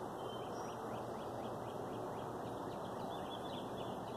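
A bird twittering in a run of short high chirps, several a second, over a steady background noise.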